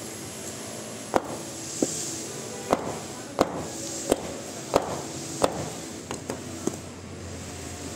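A hand-held stone striking a coconut to crack it open: about nine sharp knocks over five seconds, roughly one every two-thirds of a second, some louder than others.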